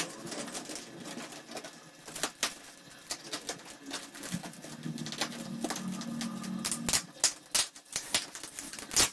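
Plastic wrapping crinkling and crackling as it is pulled and torn off a rolled mattress, in irregular sharp crackles that are loudest in the last couple of seconds.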